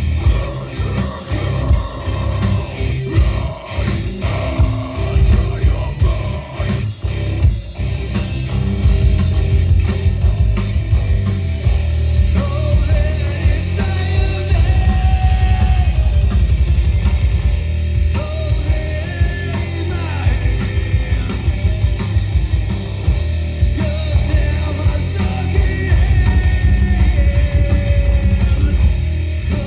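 Heavy rock band playing live: drum kit, distorted guitars and bass, with vocals over them. The first several seconds are choppy, with separate drum hits and short dips, and from about eight seconds in the full band plays steadily.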